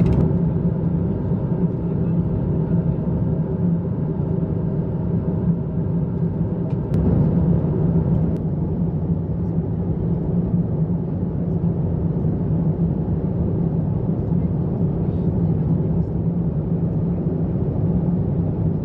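Airbus A350-900 cabin noise heard inside the cabin: a steady low rumble of airflow and its Rolls-Royce Trent XWB engines, with the airliner at the start of its descent.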